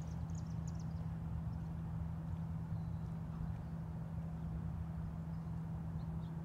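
A steady low hum with one constant tone, running unchanged throughout. A few faint high chirps come in the first second.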